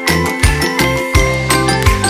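Background music: an upbeat track with a steady beat and bright, tinkling bell-like notes.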